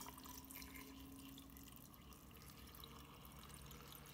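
Faint, steady trickle of water being poured into a tall glass vase.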